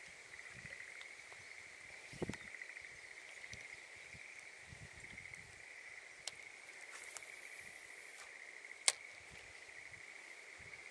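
A steady, faint chorus of insects, a high trilling buzz. A soft knock about two seconds in and a few sharp clicks, the loudest near the end.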